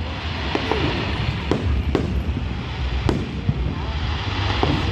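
Fireworks display: a continuous rumble and crackle of bursting shells, with about five sharper bangs spread through.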